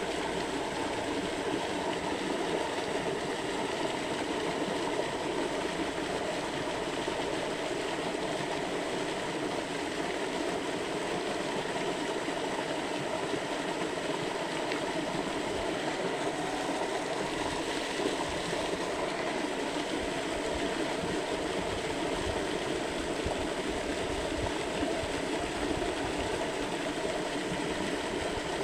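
Steady rushing of a shallow river's flowing water.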